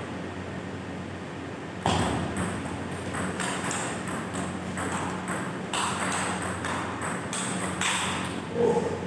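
Table tennis rally: the ball knocking sharply off the players' bats and bouncing on the table, a quick irregular series of clicks starting about two seconds in. A louder short sound near the end.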